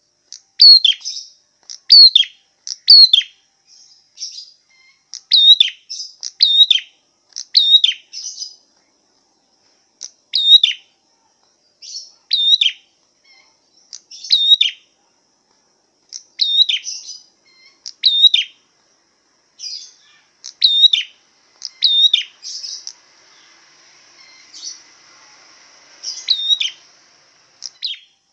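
A songbird calling over and over: short, sharp, high notes that each drop quickly in pitch, given singly or in pairs about every one to two seconds.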